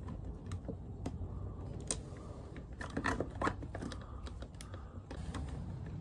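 Irregular small clicks and taps from a screwdriver and wire ends on the terminals and plastic body of a light switch plate being wired.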